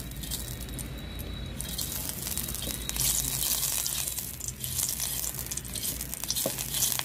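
Oil sizzling and crackling on a hot clay pan as it is rubbed over the surface with a piece of aubergine stalk, a little louder from about three seconds in.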